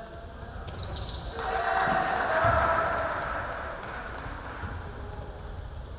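Basketball game sounds on a hardwood gym floor: a swell of players' shouting builds about a second and a half in and fades after a couple of seconds, with the ball thudding on the floor in the middle of it.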